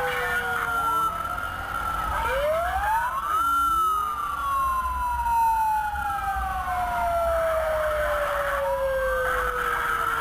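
Emergency vehicle sirens wailing, more than one at once. One climbs quickly about two seconds in, then falls slowly over several seconds, over a steadier high siren tone and a low vehicle rumble.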